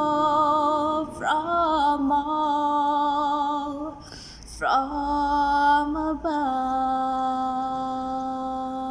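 A woman singing unaccompanied, holding three long steady notes with short breaths between them; the last note is held for several seconds and slowly fades.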